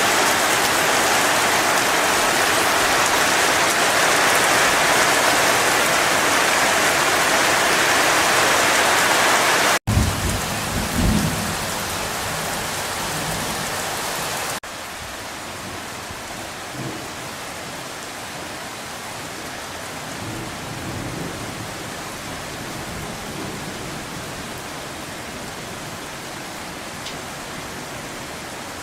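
Torrential rain pouring down in a steady roar. After a short break about ten seconds in, a low rumble of thunder follows, and then the rain keeps falling more quietly.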